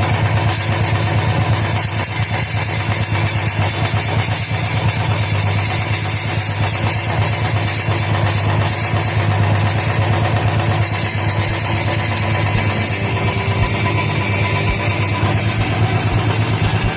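Royal Enfield Thunderbird 350X's single-cylinder engine running steadily, heard at its silencer, which the owner says has developed a sound issue.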